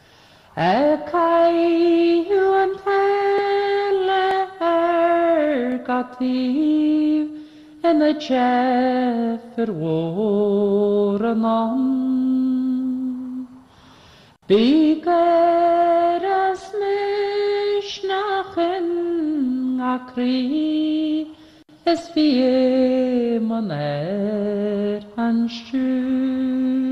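A woman singing a slow melody unaccompanied, long held notes sliding from one to the next, in two long phrases of about twelve seconds each with a short breath between them; the second phrase repeats the shape of the first.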